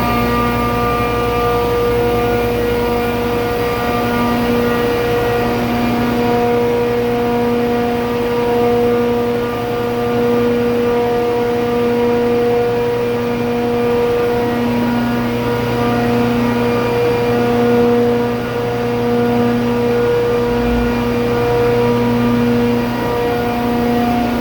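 400 hp ammonia (R-717) low-side booster compressor running steadily: a loud, even machine drone with a hum of several steady tones.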